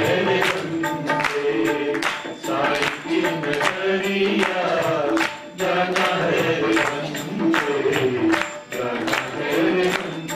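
Hindi devotional bhajan sung live by a lead voice and a group of singers to harmonium, with tabla and hand clapping keeping a steady beat.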